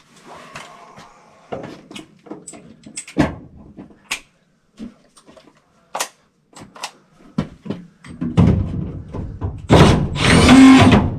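Scattered clicks and knocks of tool and sheet-metal handling, then from about eight seconds in a cordless driver runs loudly in two spells on a 2-inch screw in a tight spot.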